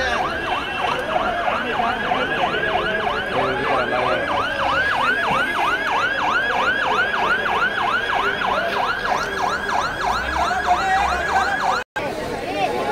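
Emergency vehicle siren in a fast yelp, sweeping up and down about four times a second, stopping abruptly near the end.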